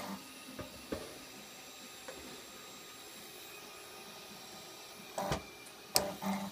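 Homemade delta robot working a pick-and-place move: a few small clicks and knocks from the arm and coin, then a cluster of sharp clicks with one loud clink about six seconds in as a coin meets the upturned baking tray. A short stepper-motor hum sounds at the start and again near the end.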